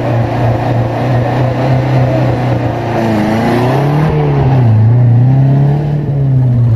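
Off-road race vehicle's engine running with a steady low note, then revving up and down a few times in the second half.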